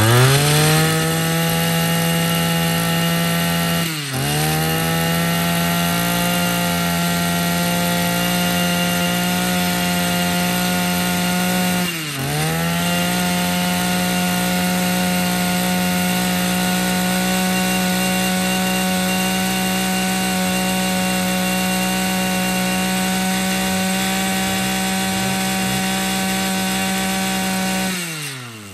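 Echo 22cc two-stroke brush cutter engine revved up to full throttle and held there, with the throttle eased off briefly twice, about four and twelve seconds in, and let back down to idle near the end.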